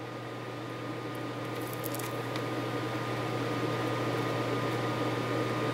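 Flux sizzling under a wide blade soldering-iron tip pressed on BGA pads as it melts the old lead-free solder, growing steadily louder, over a steady low hum.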